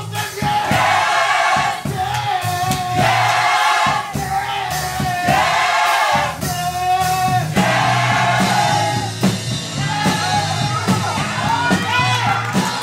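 Gospel mass choir singing in sustained phrases of about two seconds each, backed by bass and drums.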